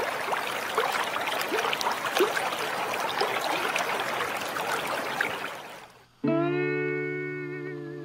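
A rocky stream rushing and babbling over stones, cutting off about six seconds in. A guitar chord is then struck and rings on, wavering slightly as it fades.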